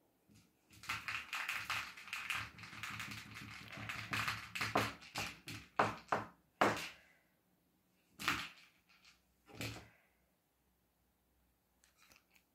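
A fast run of clattering knocks and taps for about six seconds, followed by two single knocks about a second and a half apart and a few faint taps near the end.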